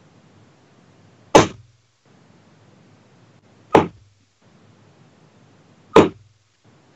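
Three steel-tip darts thudding one after another into a bristle dartboard, a sharp single impact each, about two seconds apart.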